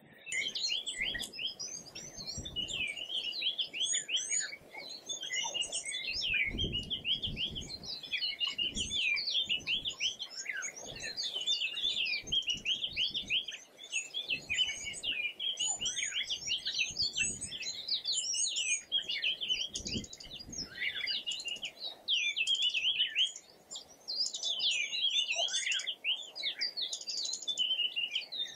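A dense chorus of small birds chirping, many short calls overlapping without a break, with a few low rumbles underneath.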